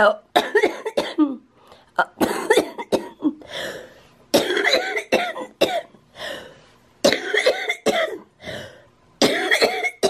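A woman with cystic fibrosis coughing in several bouts of sharp coughs with short pauses between them.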